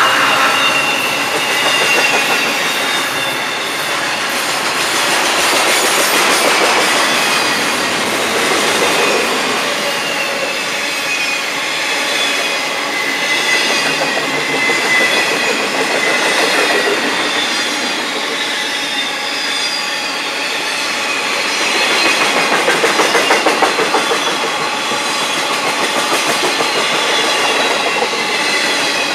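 Florida East Coast Railway freight train of intermodal container cars rolling past: a steady rumble and rattle of steel wheels on rail, with clicking over the rail joints and a faint high-pitched wheel squeal.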